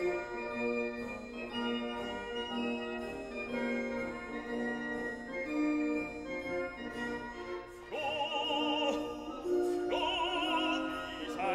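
Background music: sustained organ-like chords, joined about eight seconds in by an operatic singing voice with wide vibrato.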